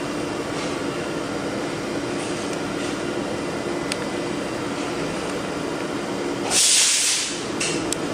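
Steady mechanical hum from background machinery, with a few faint clicks of a hex-key driver against the steel vise. A loud hiss lasting under a second cuts in near the end.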